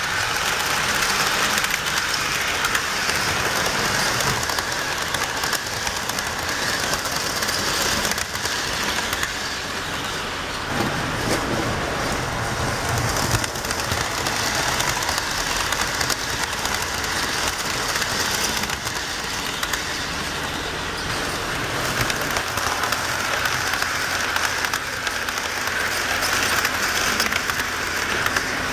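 HO scale model passenger trains running past at speed: a steady rolling clatter of metal wheels on the track, with a short lower rumble a little under halfway through.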